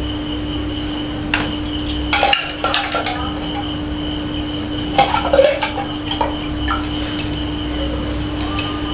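Steel kitchenware being handled, with scattered clinks and rattles of bowls and utensils, loudest about two seconds in and again about five seconds in, over a steady hum.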